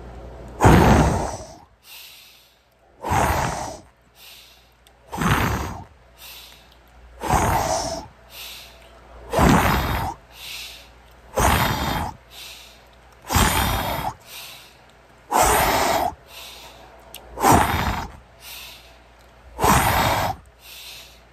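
A man breathing hard through a set of push-ups, close to the microphone: ten forceful breaths about two seconds apart, with a quieter breath between each.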